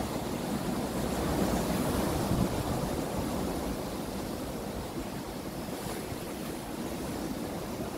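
Sea surf breaking and washing over a rocky shore, a steady rushing wash that swells a little in the first couple of seconds and then eases slightly.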